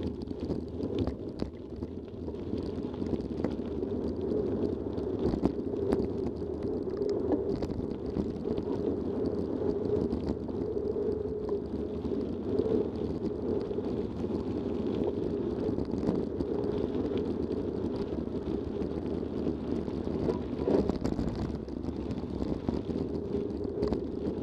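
Mountain bike rolling fast over a gravel path: a steady, dull rumble of tyres and wind on the microphone, broken by scattered short knocks and rattles as the bike goes over bumps.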